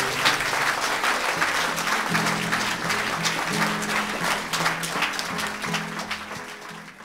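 Audience applauding over instrumental music, both fading out near the end.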